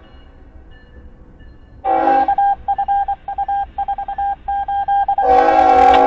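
Locomotive air horn sounding for a grade crossing. After a short lull it comes in about two seconds in as a rapid string of broken, choppy blasts, then settles into a long steady chord near the end.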